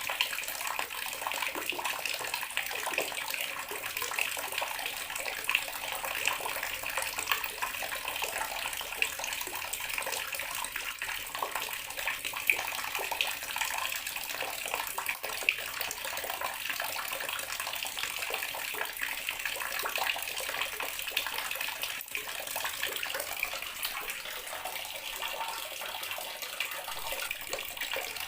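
Water running steadily from a tap into a bathroom sink: an unbroken splashing stream.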